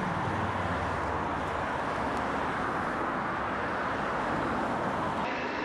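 Steady rushing wind and rolling noise picked up while riding an e-bike, even and unbroken, its tone shifting slightly near the end.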